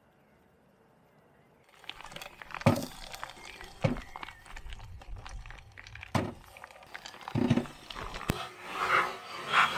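Oil crackling and sizzling in a frying pan, with several sharp knocks against the pan; the sizzle grows louder near the end. The first second and a half is near silent.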